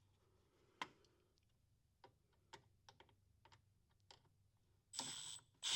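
Near silence broken by a few scattered small clicks and taps, the sound of hand tools and sockets being handled. Near the end comes a brief hiss with a faint high whine.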